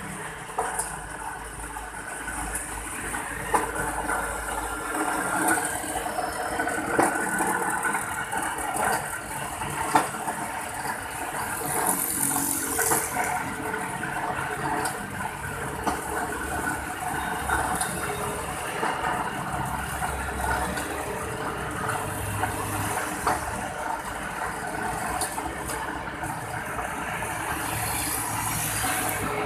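GQ50 rebar cutting machine running on its 4 kW electric motor, a steady mechanical hum and rattle with a few sharp clacks.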